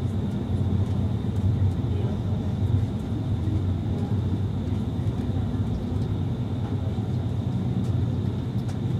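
Passenger train coach running along the line, heard from inside the carriage: a steady low rumble of wheels on the track.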